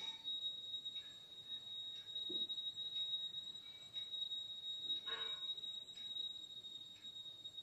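A steady high-pitched whine throughout, with faint squeaks and scratches of a marker drawing on a whiteboard, the clearest about five seconds in.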